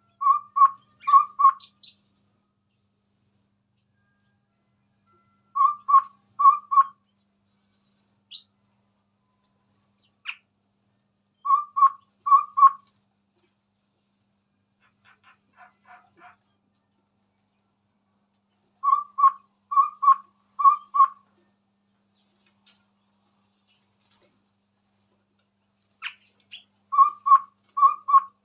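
Chestnut-rumped babbler singing: short runs of four to six even-pitched hooting notes, a run every six seconds or so, with faint high twittering between the runs.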